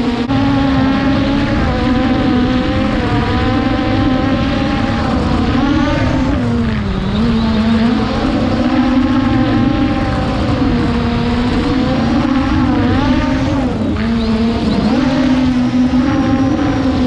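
Quadcopter drone's propellers whining steadily, the pitch dipping and climbing back several times as the drone changes speed, over a rough low rush of wind.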